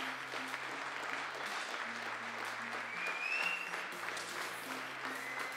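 Spectators applauding in a shooting hall, with background music underneath that has a bass line of held notes changing pitch.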